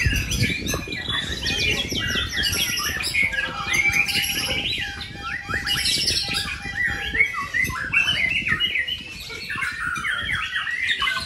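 White-rumped shamas singing in contest cages: a dense, fast run of varied chirps, trills and whistles, with songs overlapping throughout.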